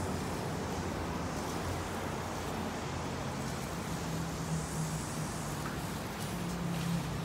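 Steady urban background noise of distant road traffic, with a low hum that swells twice in the second half.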